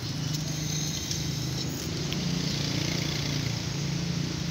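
A steady low mechanical hum, like a motor or engine running.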